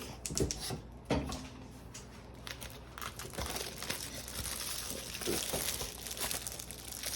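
Plastic packaging crinkling and rustling as craft supplies are handled, with scattered sharp crackles and a denser stretch of crinkling in the middle.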